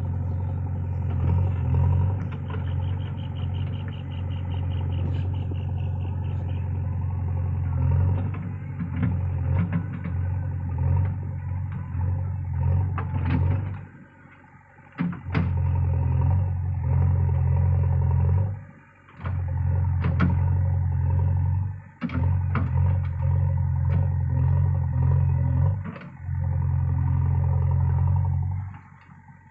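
JCB backhoe loader's diesel engine running steadily under load while the backhoe digs, with scattered knocks and clatter from the bucket and soil. In the second half the sound drops away abruptly for a moment several times.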